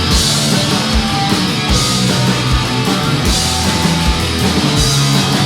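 Punk band playing live, an instrumental passage with electric guitar over a steady beat and no vocals.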